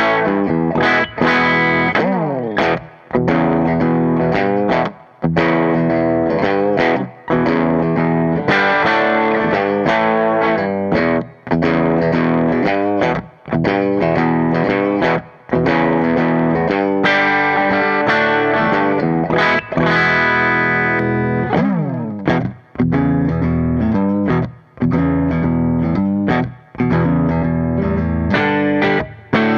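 Electric guitar, a 335 with humbucker pickups, played through the AmS Hurricane 40 valve amp head with four 6V6 power tubes: chords in short phrases with a brief stop about every two seconds, and two downward slides, about two seconds in and again around twenty seconds in.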